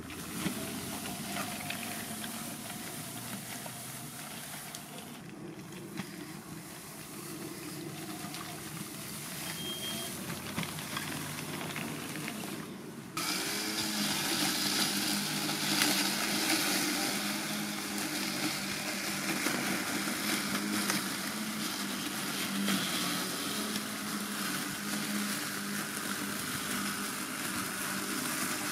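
Mammotion Luba 2 robot lawn mower running through very tall grass on a slope, its motors keeping a steady hum over a continuous hiss and not slowing under the load. The sound steps up suddenly to a louder level a little under halfway through.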